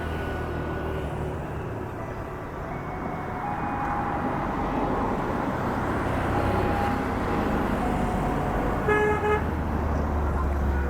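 Steady low rumble of a train at the station, with a short two-part horn toot about nine seconds in.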